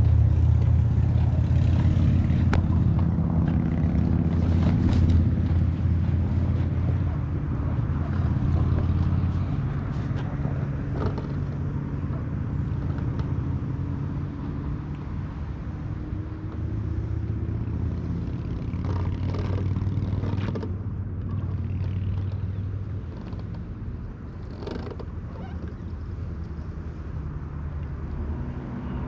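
Small boat's outboard motor running steadily under way. It is louder for the first ten seconds or so, then eases back a little.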